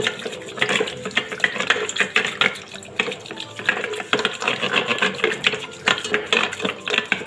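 Wooden hand churner (mathani) spun back and forth in a steel jug of curd, knocking and rattling rapidly against the metal as the curd is churned with a wet swishing.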